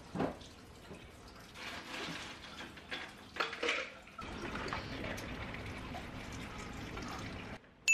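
Kitchen sink tap running steadily onto dishes from about four seconds in, cutting off just before the end, after a few light knocks and clinks of dishes being handled.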